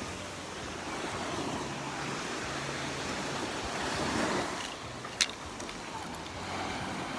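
Surf washing onto the beach, a steady hiss that swells as a wave breaks about four seconds in. A short sharp click comes just after.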